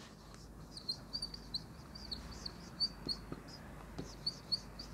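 Marker squeaking on a whiteboard while writing: a quiet string of short, high squeaks at an uneven pace, with a few faint taps.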